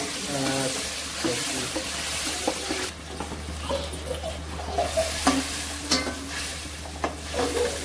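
Onion and spice masala sizzling in a stainless steel kadai while a metal spatula stirs and scrapes it. The sizzle is strongest for the first three seconds, then a few sharp clinks of the spatula on the pan follow.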